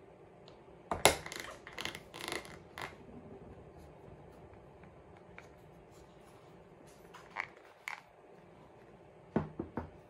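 Plastic latch flaps on the lid of a square FOSA vacuum storage container being snapped shut, with clicks and handling rattles. There is a cluster of loud clicks about a second in, two sharp clicks past the middle and a quick run of clicks near the end.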